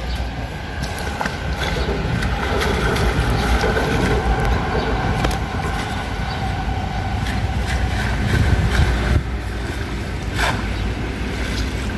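Steady low rumble with a faint sustained whine of a train passing on an elevated railway. Over it, scattered splashes and drips as a nylon cast net is dipped and rinsed in river water, the biggest splash near the end.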